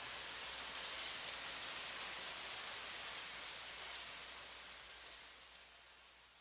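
Rain sound effect on the song's outro: a steady hiss of falling rain, fading out gradually over the last couple of seconds.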